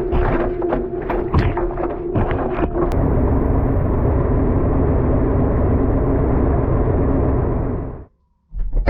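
Washing machine running, heard from inside the drum. For about three seconds there are repeated knocks over a steady motor hum. Then a steady rushing wash noise takes over and cuts off suddenly near the end.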